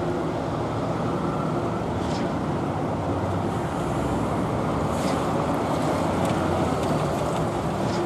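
Concrete mixer trucks' diesel engines running in a steady heavy rumble, with a short high hiss about two seconds in and another about five seconds in.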